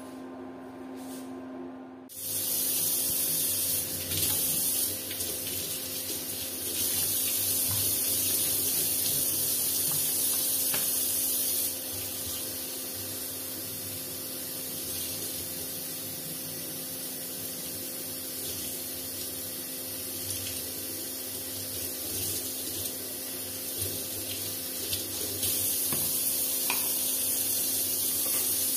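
Kitchen tap running into a steel sink, turned on about two seconds in, the splashing changing in loudness now and then as an item is rinsed under the stream.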